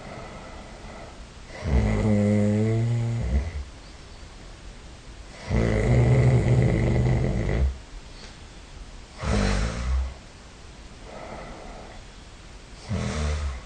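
A person snoring: long buzzing snores of about two seconds each, then shorter and fainter ones, coming every few seconds with quiet breathing between.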